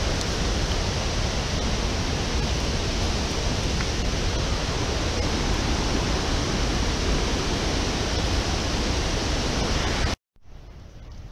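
Steady rushing of a large waterfall, the Salto Magessi on the Teles Pires river, heard as a constant wash of noise. It cuts off abruptly near the end, leaving a much quieter background.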